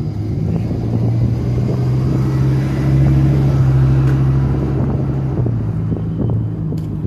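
A motor vehicle's engine hum. It grows louder to a peak about three to four seconds in, then fades.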